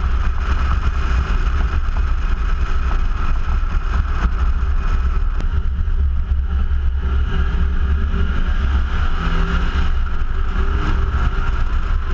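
Nissan 370Z's 3.7-litre V6 running through its stock exhaust while the car drives, with steady road and tyre noise and heavy wind rumble on the low-mounted camera's microphone. The engine note shifts slightly about two-thirds of the way through.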